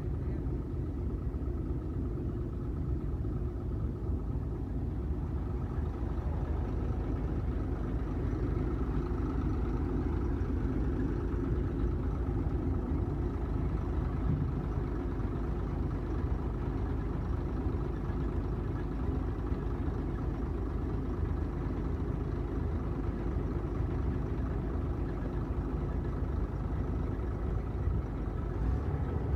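Heavy farm machine's diesel engine running steadily: a low, even drone with no break.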